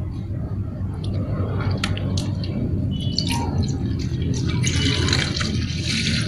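Milk being poured from a plastic cup into a tin can set in ice, over a steady low hum. There are a few light ticks in the middle, and a hiss of pouring liquid in the last couple of seconds.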